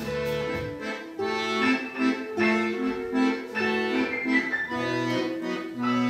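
Accordion playing a tune of held notes and chords, the notes changing every half second or so.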